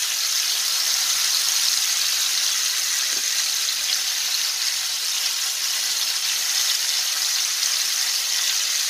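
Marinated chicken pieces shallow-frying in hot oil in a pan, giving a steady, even sizzle.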